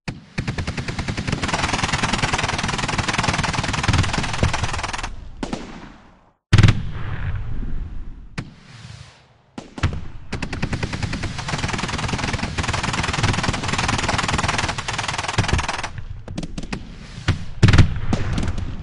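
Simulated fireworks from Finale Fireworks software: a dense, rapid barrage of crackling reports, like volleys of shots. It thins out twice, broken by a sudden loud bang, then resumes and breaks into scattered single bangs near the end, with one loud bang among them.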